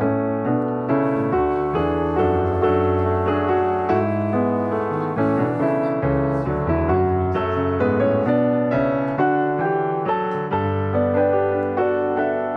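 Background piano music, with notes changing steadily.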